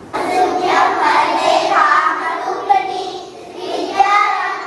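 Young children singing together in unison, holding long notes.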